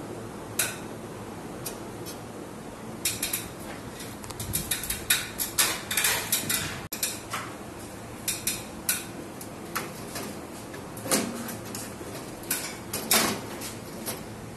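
Metal clicks and clinks from hardware being worked in a steel network rack: a screwdriver and screws on the rack rails, and the metal switch chassis knocking against the rack. The clicks come in bunches, thickest in the middle.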